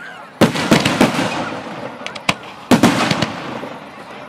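Display firework shells going off: two volleys of sharp bangs, about half a second in and again near three seconds, each followed by a few quicker cracks and a rolling echo.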